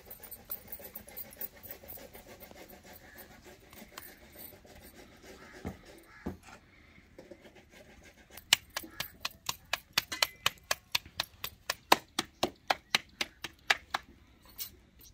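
Paratha dough slapped back and forth between the palms to flatten it by hand: a quick, even run of sharp pats, about four a second, starting a little past halfway and lasting about five seconds.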